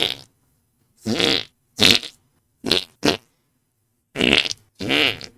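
Armpit farts made by pumping a hand against the armpit: a run of about seven short, wobbling fart noises, each under half a second, with brief silent gaps between them.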